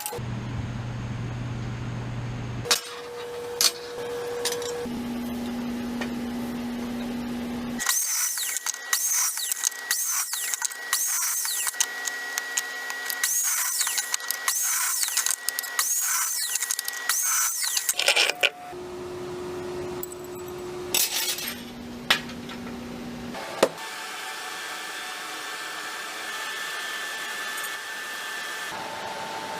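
A string of short clips of workshop power tools, each a steady motor sound at its own pitch, switching abruptly every few seconds. The longest stretch, from about eight to eighteen seconds in, is a harsh, high-pitched machining noise.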